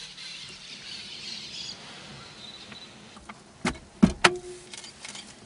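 Car glove box being opened: a few sharp clicks and knocks of the latch and plastic lid, about three and a half to four and a half seconds in, the last with a short ringing rattle. Faint high chirping sounds in the first second or so.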